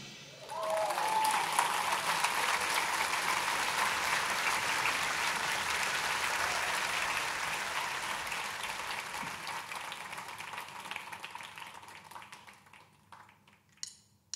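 Audience applause that starts just after the music cuts off, then slowly fades away and dies out near the end, leaving a few faint clicks.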